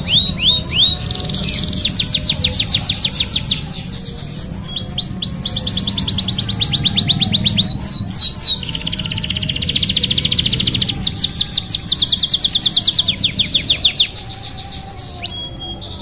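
Domestic canary singing a long run of song: rapid trills of repeated falling notes, a dense buzzy rattle in the middle, and a short steady whistled note near the end.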